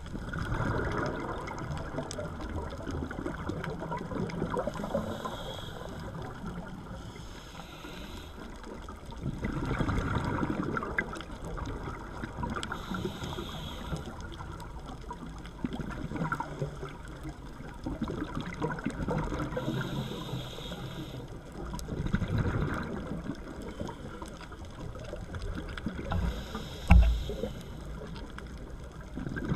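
A scuba diver's regulator breathing underwater: short hisses of inhalation alternate with bubbling, gurgling exhalations every several seconds. A single low knock comes near the end.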